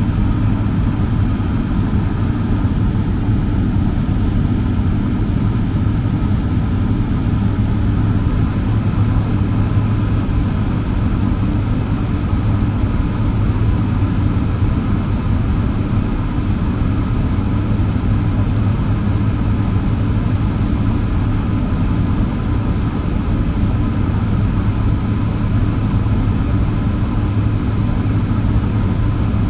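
Boeing 767-300's twin turbofan engines idling, a steady low rumble heard inside the cabin as the jet holds on the runway awaiting takeoff clearance, with a faint steady high tone above it.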